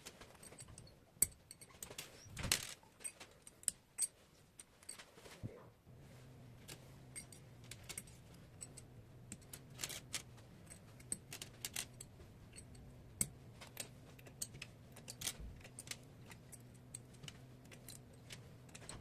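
Scattered metallic clicks and clinks of small metal parts or tools being handled, with a steady low hum starting about six seconds in.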